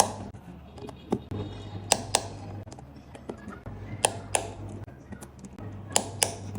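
Torque screwdriver clicking as each small phone screw reaches its set torque: three pairs of sharp clicks about two seconds apart.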